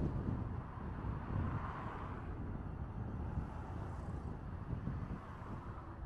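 A car driving slowly on a city street: low, steady road and engine rumble with wind buffeting the microphone, easing a little about half a second in.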